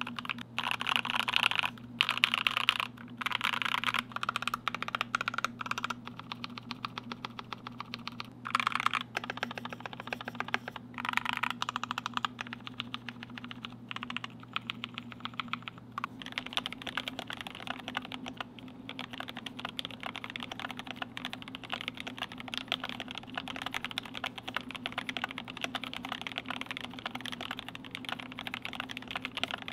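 Fast continuous typing on a GMMK Pro 75% mechanical keyboard with lubed, filmed Durock L7 linear switches and PBT keycaps: a dense run of key clacks. It is an aluminium plate with foam at first; partway through, the sound is of the polycarbonate plate with foam.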